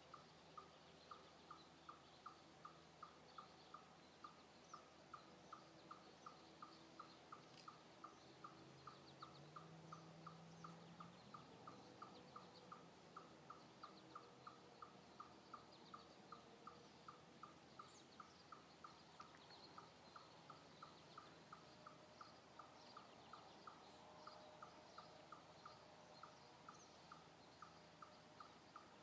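Faint, monotonous series of short single tooting notes, all at the same pitch and repeated steadily about two a second, from an animal, most likely a bird, that the recordist could not identify. Fainter scattered chirps sound higher up.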